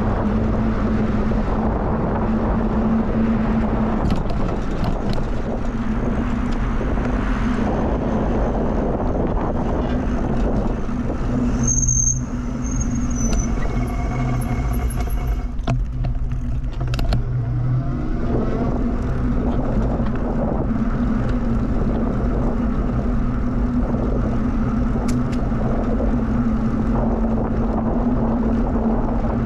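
Wind rushing over the microphone and tyre noise of a bicycle riding along a trail, over a steady low hum. The rushing drops away for several seconds around the middle, then returns.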